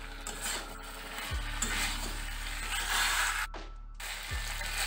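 Metal spatula stirring and scraping mixed vegetables around a metal karai, with a light sizzle of the frying oil; the stirring breaks off briefly about three and a half seconds in.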